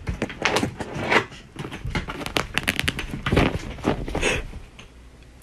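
A rapid, irregular run of close rustling, scratching and clicking noises that fades out about four and a half seconds in.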